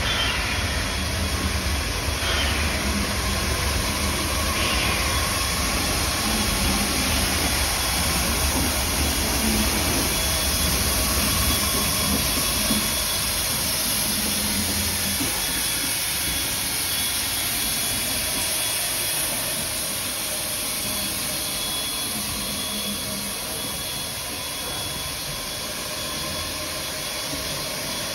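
Steam locomotive 141 R 840, a 2-8-2 Mikado, moving slowly past with a steady hiss of steam. A low rumble under the hiss dies away about halfway through, leaving mostly hiss.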